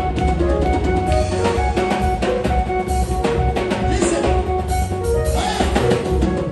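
Upbeat gospel praise music with a drum kit, bass drum and snare keeping a steady beat under held instrumental notes.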